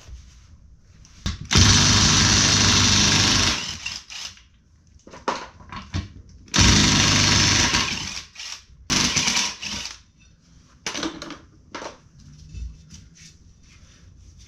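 A handheld power tool runs in two bursts of about two seconds each, backing out the bolts of a UTV wheel's beadlock ring. Shorter bursts and knocks fall between them.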